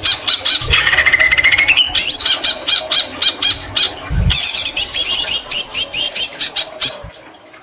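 White-rumped shama singing a fast run of rapidly repeated chattering and whistled notes, its song filled with greater green leafbird imitations. Two low thumps come through, and the song fades out near the end.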